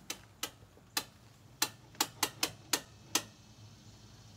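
A run of about nine short, sharp clicks at uneven intervals, coming faster toward the end and stopping a little after three seconds in.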